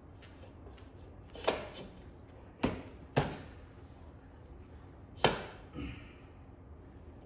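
Four sharp knocks from hand tools or bike parts being handled during a motorcycle wheel change, two of them close together in the middle and a softer knock just after the last.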